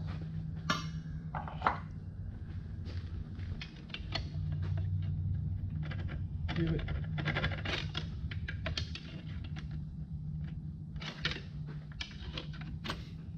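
Scattered metal clinks and clatter of hand tools and engine parts during the teardown of a GM 5.3 engine, over a steady low hum.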